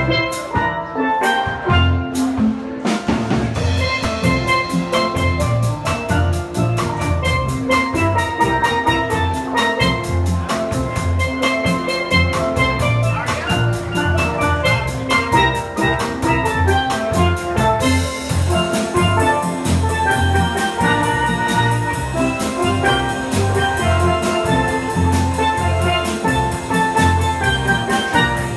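Steel pan band playing a tune: ringing melodic pan notes over low bass notes, with a drum kit keeping a steady beat.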